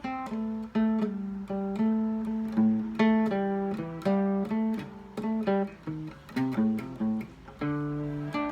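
Acoustic guitar playing a blues melody, picked note by note, each note ringing and fading before the next.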